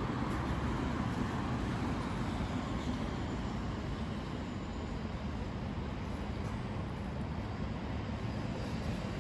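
Steady low rumble of distant city traffic, with no distinct events standing out.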